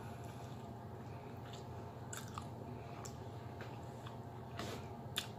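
A person biting and chewing oxtail meat off the bone, close to the microphone, with a few short wet smacks and clicks, the sharpest near the end, over a steady low hum.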